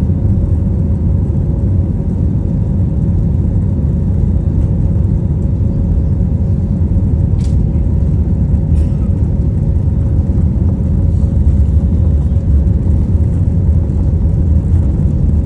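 British Airways jet airliner taking off: its engines and airflow make a steady low rumble with a faint steady hum, and two faint clicks come in the middle.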